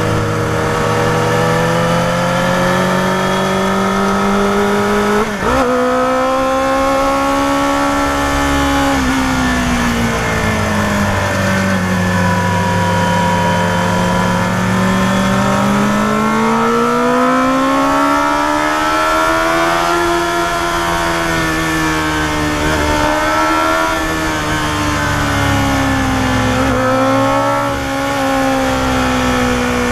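Yamaha FZR250R's small, high-revving inline-four engine pulling uphill, its pitch rising and falling with the throttle through the bends, with a short sharp break about five seconds in.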